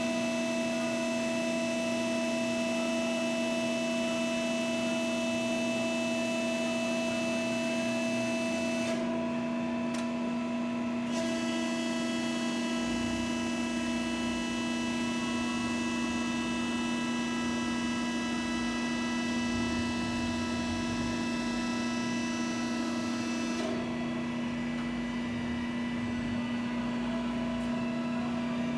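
Hydraulic power unit of a Cincinnati 90-ton CNC hydraulic press brake running with the machine powered up: a steady hum with a high whine over it. The upper hiss drops away briefly about nine seconds in and again near the end.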